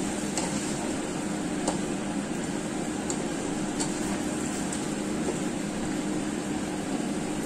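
Chicken wings and potatoes being stirred in a nonstick wok with a spatula: a few light taps and scrapes of the spatula against the pan over a steady fan-like hum.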